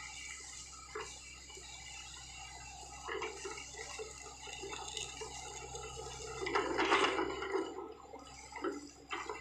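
Sany mini excavator working: its diesel engine runs as a steady low hum, with irregular knocks and scraping as it travels and digs. A louder noisy burst comes about seven seconds in.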